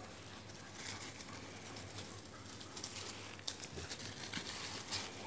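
Two small dogs scampering across grass and dry leaves: light, irregular pattering and rustling of paws, with scattered small crackles and taps.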